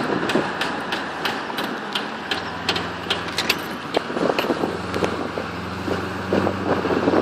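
Sharp, irregular clicking, a few clicks a second, from a Holden VY SS Commodore's worn rear right-hand drive shaft CV joint under load while driving. Underneath is a steady drone of engine and road.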